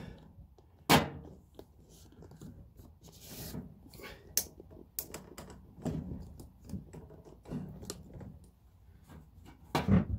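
Handling noise of objects being moved and tapped. There is a sharp click about a second in, then scattered lighter clicks and knocks, and a couple of thumps near the end.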